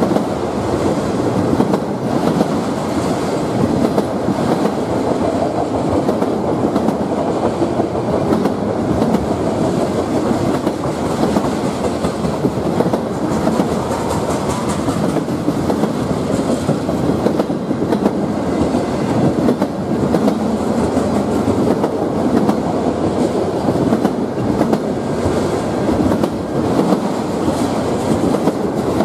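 Freight train of autorack cars rolling past close by: a steady rumble and clatter of steel wheels on the rails, with frequent clicks.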